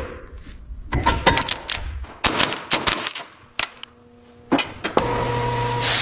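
Metal clanking and knocking in quick, irregular runs as heavy tank parts are worked together, then a steady machine hum near the end.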